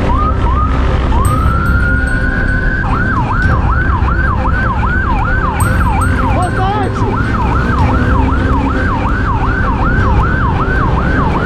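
Police siren sounding close: one rising wail, then from about three seconds in a fast yelp sweeping up and down about two and a half times a second, over a steady low rumble.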